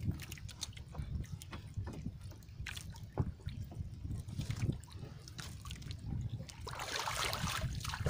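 Small waves lapping and sloshing against the hull and outrigger of a small outrigger canoe, with a low steady rumble underneath and a louder wash of water about seven seconds in.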